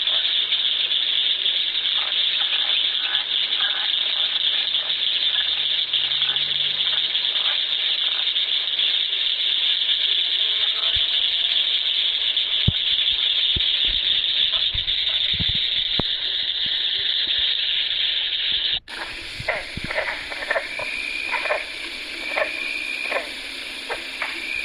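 Pond ambience: a dense, steady, high-pitched chorus of calling frogs, with faint clicks. About three-quarters of the way through it cuts off abruptly and a different effect begins: short high beeping tones, repeated several times, with clicks.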